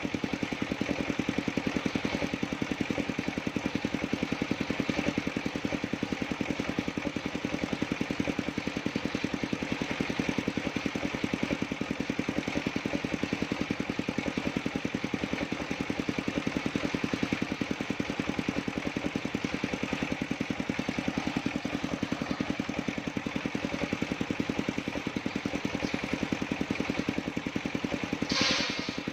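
Engine-driven circular sawmill running steadily, its engine pulsing evenly, with a brief sharp noise about a second before the end.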